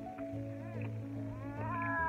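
Background music with steady held notes over a low bass. A high, wavering cry-like sound bends up and down briefly about half a second in, then returns more strongly near the end.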